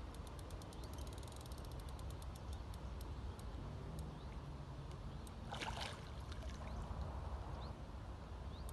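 Lakeside ambience of wind and lapping water, with a quick run of ticks over the first three seconds and a short rustling scrape about halfway through.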